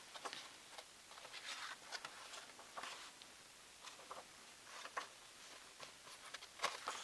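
Faint handling of a book: scattered soft clicks and brief paper rustles as pages are turned.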